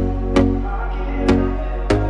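Background music: sustained synth chords with a sharp beat about twice a second, no singing.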